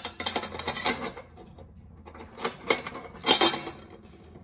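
Irregular clattering knocks and scraping, busiest at the start and again around the middle, over a faint steady hum.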